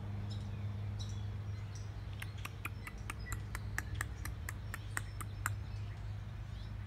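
A rapid series of sharp, clicking chirp calls from an animal, about four or five a second, lasting about three seconds from roughly two seconds in, over a steady low hum.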